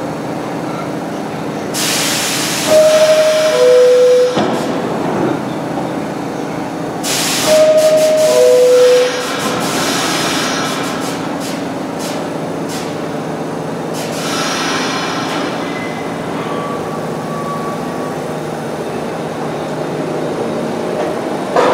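New York City subway train's two-tone descending door chime, sounding twice about five seconds apart, each just after a burst of air hissing. A steady low hum from the standing train runs underneath.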